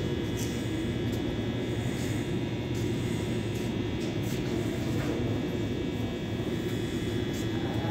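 Steady low rumble with a faint high hum: the background din of an underground subway station, with a train standing in the tunnel.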